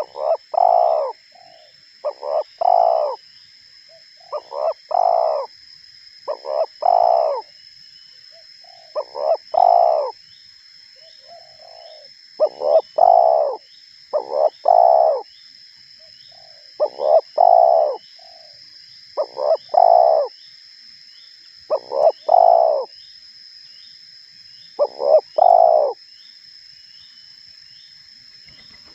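Spotted dove cooing: about a dozen phrases of two or three low coos each, one every two to two and a half seconds.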